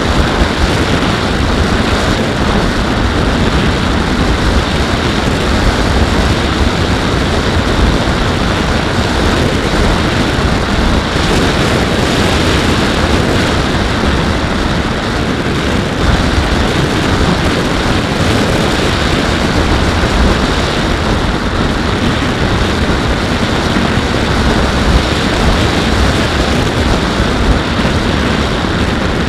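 Steady, loud rush of airflow over a Skywalker X-8 flying wing's onboard Mobius camera in cruise flight, wind buffeting the microphone, mixed with the drone of the plane's propeller.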